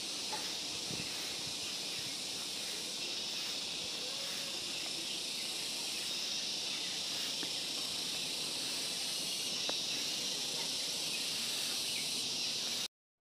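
Steady, high-pitched chorus of insects, which cuts off abruptly about a second before the end.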